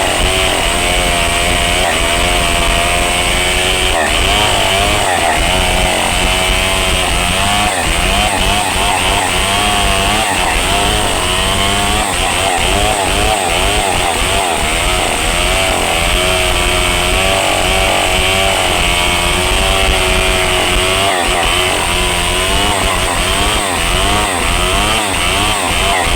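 Chainsaw cutting into the trunk of a large rain tree, running loud and steady with its engine pitch rising and falling repeatedly as it bogs under load and revs back up.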